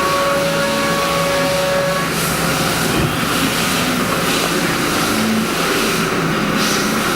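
Haas EC-400PP CNC horizontal mill running: a steady, loud mechanical noise with a few held whining tones.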